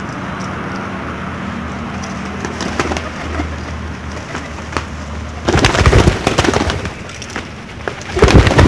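Pigeons' wings clattering as they take off, in two loud bursts of rapid flapping: one about five and a half seconds in lasting over a second, another near the end. Under them runs a steady low background rumble.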